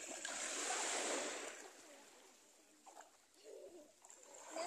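Shallow sea water washing and splashing at the shoreline. It is loudest for the first two seconds, then fades to a quieter lapping.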